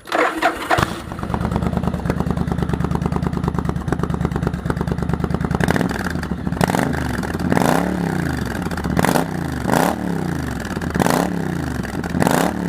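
Yamaha XV1100 Virago's V-twin engine, exhausting through straight headers with only the pipe inserts fitted and no baffle, catches about a second in and idles. From about halfway it is blipped several times, the revs rising and falling with each blip.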